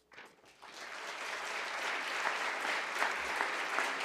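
Audience applauding: the clapping starts about half a second in, builds over the next second and then holds steady.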